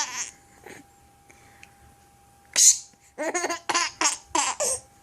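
A woman sneezes once, a short sharp burst, and about half a second later a baby laughs in a quick run of short giggles.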